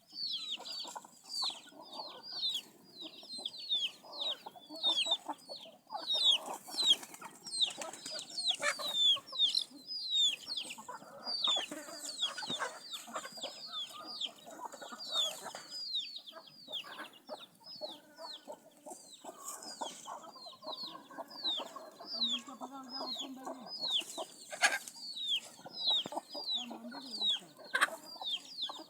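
A flock of chickens calling: many short, high peeps falling in pitch overlap continuously, with softer lower clucking beneath.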